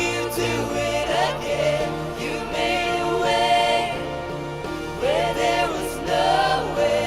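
Church worship music: singers carrying a melody in drawn-out phrases over a band's steady accompaniment and sustained bass notes.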